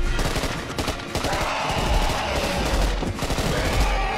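Rapid, sustained gunfire in a film soundtrack, with a long pitched sound laid over it from about a second in.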